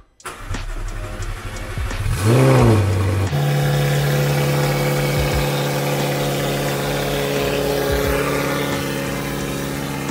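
McLaren 720S twin-turbo V8 starting up: about two seconds of starter cranking, a quick rev flare as it catches, then a steady fast idle that eases down slightly near the end.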